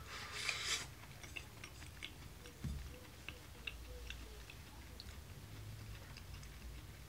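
Quiet eating sounds: a short rustle at the start, then scattered small clicks of chopsticks against a rice bowl and soft chewing.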